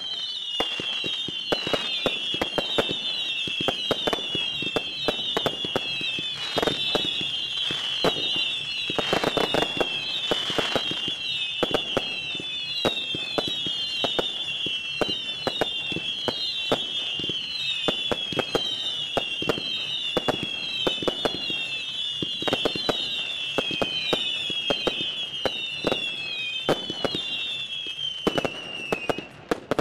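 A firework battery firing a long, unbroken run of whistling shots. Overlapping high whistles, several a second, each fall slightly in pitch, over a steady stream of sharp pops and crackles. It stops just before the end.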